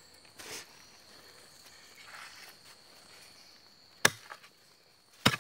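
Two hard chopping strikes about a second apart, a tool or blade hitting the earth and roots at a burrow being dug open. Under them runs a steady high trill of insects.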